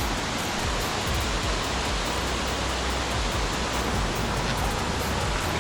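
Steady rushing roar of a waterfall, an even wash of falling water without a break.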